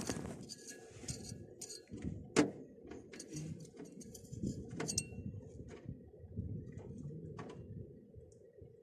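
Scattered metal clinks and knocks of hand tools on bolts and fittings, with one sharp clack about two and a half seconds in, over a low steady hum.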